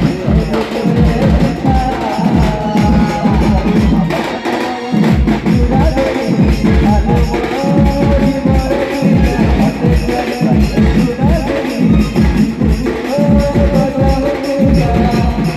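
Sambalpuri band music: fast, dense drumming with a melody of held notes played over it.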